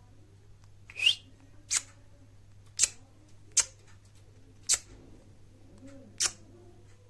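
A baby Indian ringneck parakeet giving six short, shrill squawks, roughly one a second, the first sweeping upward in pitch.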